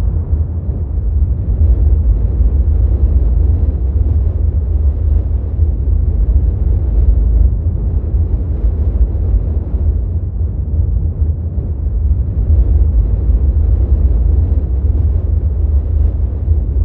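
Steady, deep rumbling noise with no pitch, heaviest in the bass and swelling and easing a little: an ambient sound-effect drone laid over the footage.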